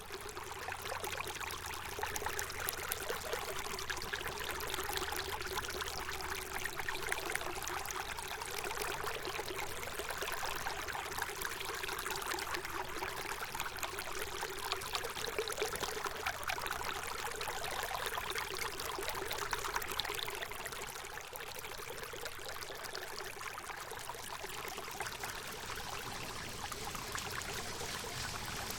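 Stream water running steadily with a dense trickling rush. It turns slightly quieter about two-thirds of the way through.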